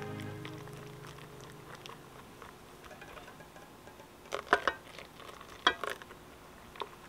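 A whisk stirring egg yolks and warm milk in a glass bowl: soft liquid patter with a few sharp clicks of the whisk against the bowl about four and a half and five and a half seconds in. Background music fades out over the first two seconds.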